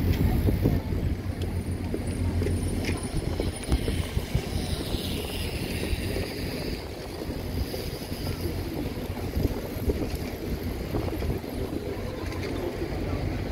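City road traffic noise: a steady low rumble.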